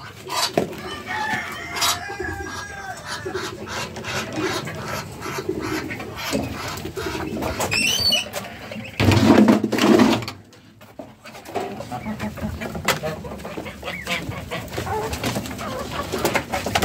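Chickens clucking and other farmyard fowl calling, over scattered footsteps and small knocks. About nine seconds in comes a loud muffled bump lasting about a second, the loudest sound here.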